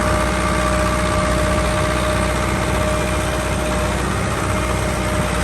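Tractor engine running steadily, with a thin steady whine over its rumble.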